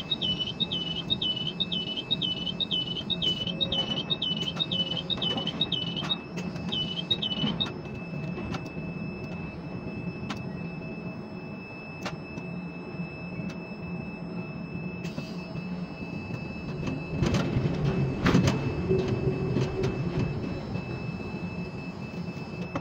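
Ship-to-shore quay crane running with a steady hum while its high warning beeper chirps about twice a second, stopping about seven seconds in. Near the end, a louder burst of metallic knocks and clatter.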